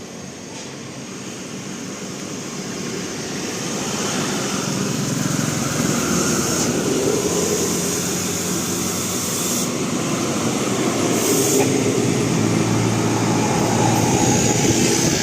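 A heavy road vehicle's engine and tyres passing close by, growing louder over the first four or five seconds and then staying loud.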